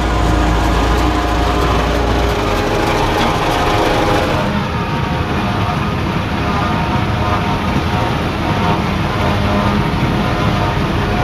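Heavy farm machinery engine running steadily. The sound changes abruptly about four and a half seconds in.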